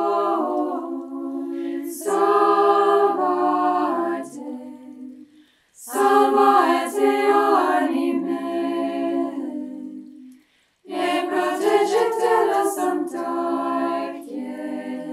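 Women's choir of religious sisters singing an Italian devotional hymn a cappella, several voices in harmony. It comes in three long phrases with brief pauses for breath between them.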